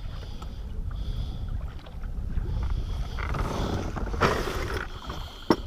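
Water lapping against a fishing kayak's hull with wind rumbling on the microphone, a louder rush of water about four seconds in and two sharp knocks on the kayak near the end.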